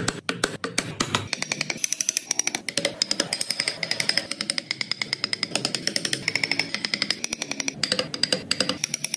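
Carving chisel being tapped rapidly into wood, a fast, even run of sharp ticks, about eight a second, over background music.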